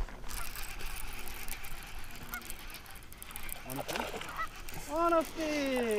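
A goose honking a few times near the end, over a quiet background.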